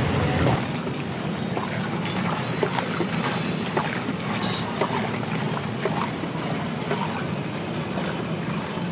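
Steady roadside traffic noise with scattered light clicks and knocks throughout; a louder low rumble drops away about half a second in.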